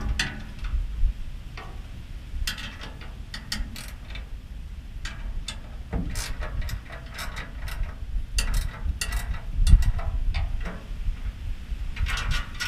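Socket ratchet wrench clicking in irregular runs as a bolt is tightened.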